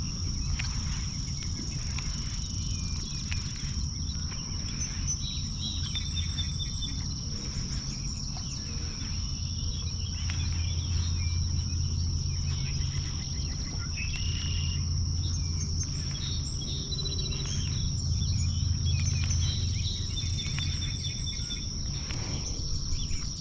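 Steady high drone of insects, with short bird chirps here and there, over a low steady rumble.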